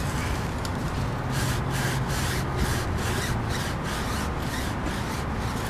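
Stiff-bristled tire brush scrubbing a rubber tire sidewall in quick back-and-forth strokes, about three a second.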